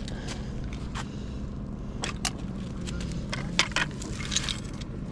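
A few sharp clicks and a short scratchy rustle as a fishing rod and sabiki rig are handled on the pier, over a steady low hum.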